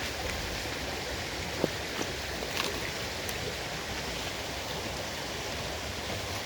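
Steady rush of running water from a river or waterfall, with a couple of brief clicks about a second and a half and two and a half seconds in.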